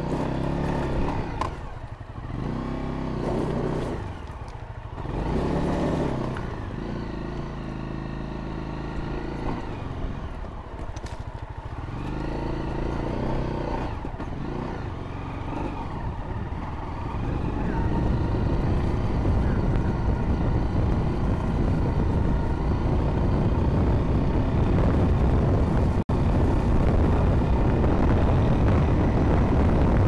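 Honda CRF250L dual-sport motorcycle's single-cylinder engine at low revs, swelling and easing with short throttle openings for the first ten seconds or so. From about 17 seconds it pulls steadily and louder, with the tyres clattering over loose creek-bed rock.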